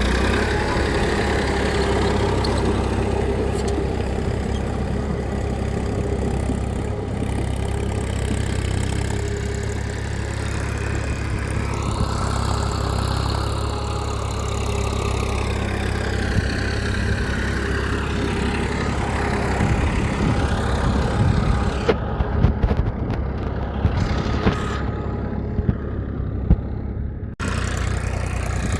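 Engine running steadily at idle with a low hum, its pitch rising and falling now and then. The sound changes abruptly near the end.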